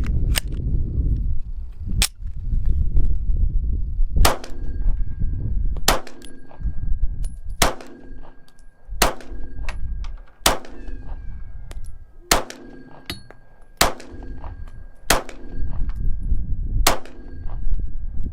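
Glock 43x subcompact 9mm pistol fired slow and steady, about ten shots roughly one every one and a half seconds, with a metallic ringing after many of them as of a struck steel target. This is a test string to see whether the pistol still fails to extract with these magazines.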